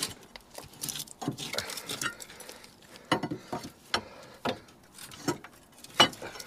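Irregular metal knocks, clinks and scrapes as the Iveco Daily's rusty upper front suspension arm is levered with a bar and worked free of its mounting once its bolts are out.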